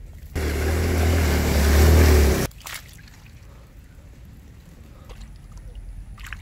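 Hands splashing and squelching in a shallow muddy puddle while grabbing fish. About half a second in, a loud rushing noise with a deep rumble lasts about two seconds and stops suddenly.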